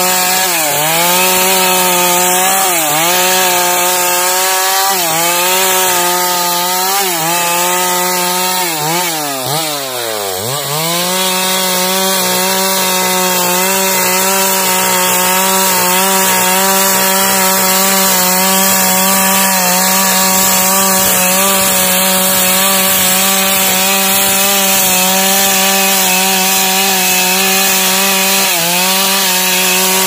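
Stihl two-stroke chainsaw at high revs ripping a log lengthwise into planks. Its pitch dips every second or two as the chain bites into the wood. About ten seconds in it drops sharply toward idle and revs back up, then runs steady at high revs, with a few more dips near the end.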